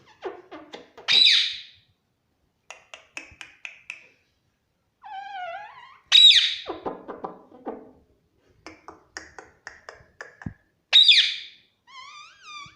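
Pet parrot vocalising: rapid clicky chatter, then a loud shrill call, three times about five seconds apart, with warbling, talk-like mumbles between.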